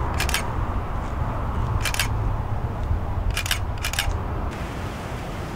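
DSLR camera shutter firing four times: once near the start, once about two seconds in, then two quick shots about half a second apart, about three and a half seconds in. A low steady background rumble runs under the clicks.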